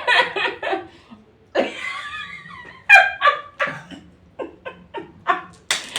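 People laughing and giggling in short runs of quick voiced bursts.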